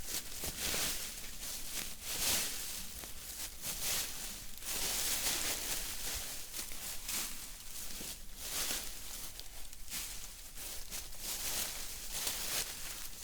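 Forest-floor debris rustling in irregular surges as it is gathered by hand and packed onto a lean-to shelter to patch holes in its covering.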